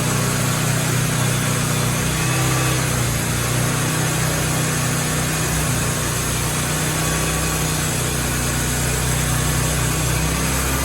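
Sawmill engine running steadily under load while the blade saws through a maple log.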